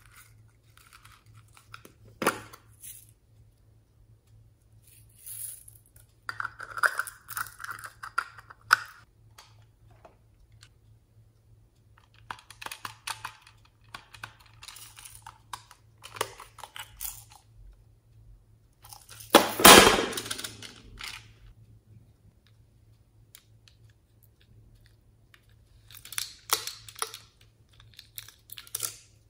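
Small plastic toy containers handled and opened by hand: scattered clicks, taps and plastic crinkling, with one louder burst of scraping noise a little past two thirds of the way through.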